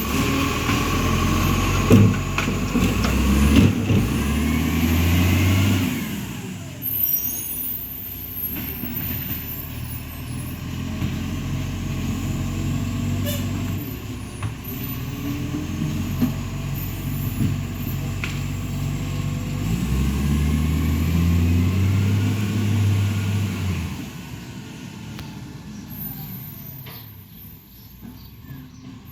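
Iveco ACCO garbage truck's diesel engine revving up and holding for several seconds, dropping back, then revving up again near the end before easing off, with a couple of sharp knocks during the first rev. The truck has an exhaust leak.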